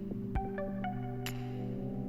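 Background music: held low notes with short melodic notes over a light, sparse beat.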